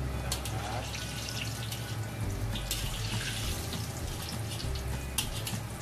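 Hot oil sizzling in a wok as a crispy battered egg fries and is lifted out with a wire mesh strainer, with a few sharp clicks.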